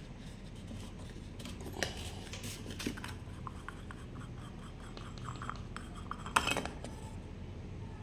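Plastic spinner cap on a Lasko fan's blade hub being unscrewed by hand. Small plastic clicks and scrapes, with a run of quick ticks midway and a sharper click near the end.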